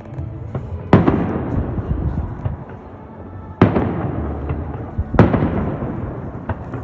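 Display fireworks bursting: three loud booms, about a second in, midway and a little past five seconds. Each is followed by a rolling rumble and crackle that dies away, with fainter pops between.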